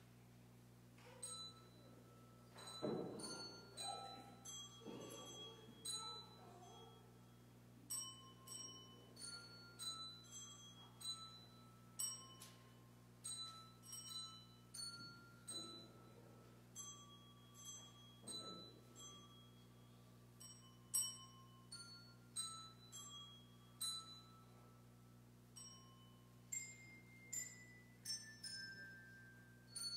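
A slow, faint melody of single bell-like notes struck on a tuned mallet percussion instrument, about one or two notes a second, with a falling run of notes near the end. A steady low hum lies underneath.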